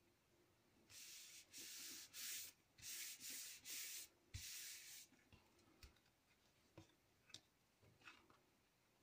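A hand rubbing and smoothing patterned paper down onto a glued chipboard album page: a run of quick rubbing strokes for about four seconds, starting about a second in. After that come a few light clicks and taps as the card pages are handled.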